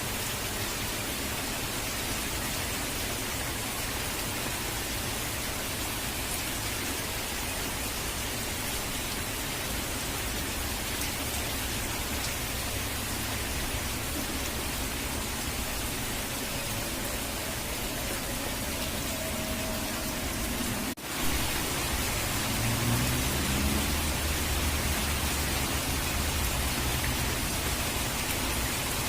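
Steady hiss of falling rain and rushing water. About two-thirds of the way through, the sound drops out for an instant, then returns with a deeper low rumble underneath.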